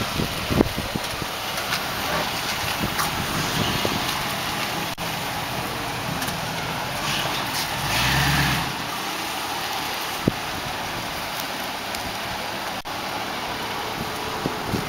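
Supercharged Ford SVT V8 idling, with wind noise on the microphone; about eight seconds in the engine swells briefly louder, then its low rumble drops away.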